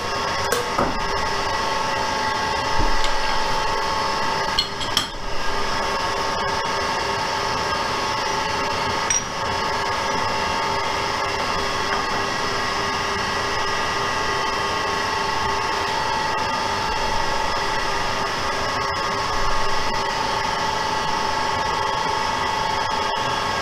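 Metal lathe running steadily, a constant hum and gear whine holding several fixed tones. A few sharp metal clinks in the first five seconds come from a wrench on the tool-post bolts.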